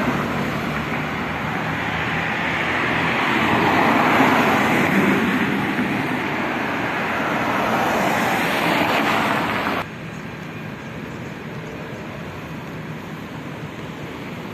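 Road traffic: cars driving past on a multi-lane street, their tyre and engine noise swelling twice as vehicles go by. About ten seconds in, the sound drops abruptly to a quieter, steady traffic hum.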